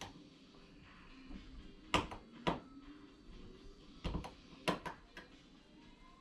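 Sharp clicks and snaps of small plastic parts being cut free from their plastic frame with a hobby knife, about six over a few seconds, with quiet handling noise between.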